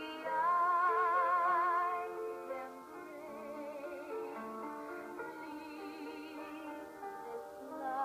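A woman singing in an operatic or musical-theatre style, holding long notes with wide vibrato over an instrumental accompaniment, played back from a tablet. The voice is loudest in the first two seconds, softer through the middle, and swells again near the end.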